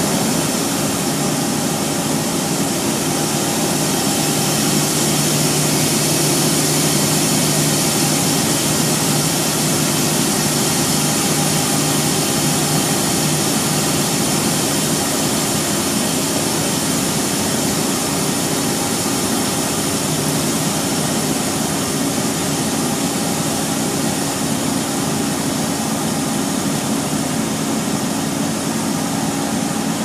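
Wright Eclipse Urban Volvo single-decker bus running at speed, heard from inside the passenger saloon: a steady drone of engine and road noise. A low hum in it eases about halfway through.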